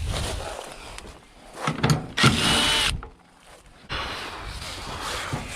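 A cordless power tool, such as a drill or electric ratchet turning a socket, runs once in a steady burst of under a second, a little past two seconds in. Softer handling noise of work on bolts comes before and after it.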